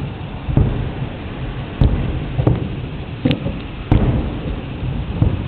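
Aerial fireworks shells bursting: about six bangs at irregular intervals, each with a short rumbling tail.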